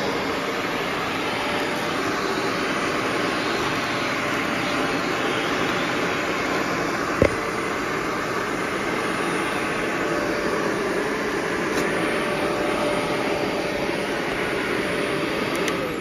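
Shark Navigator Anti-Allergen Plus upright vacuum cleaner running steadily, with a single sharp knock about seven seconds in. The motor is switched off right at the end.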